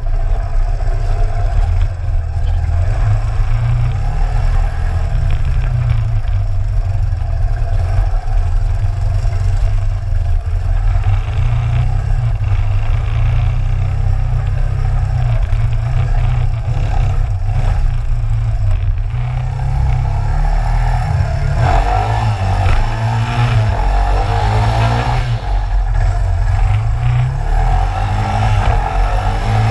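Suzuki DR350 dual-sport motorcycle's single-cylinder four-stroke engine running under way, heard close up from a camera on its gas tank. Its note steps up and down with the throttle and shifts, with plain rising and falling revs about two-thirds of the way through.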